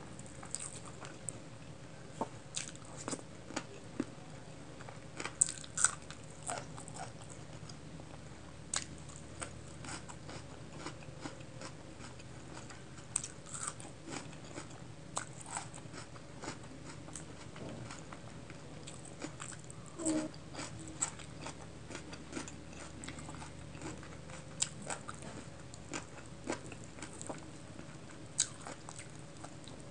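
Close-miked eating sounds: wet chewing and mouth smacks, with short sharp clicks scattered irregularly throughout, as rice and chicken curry are mixed with the fingers and eaten by hand.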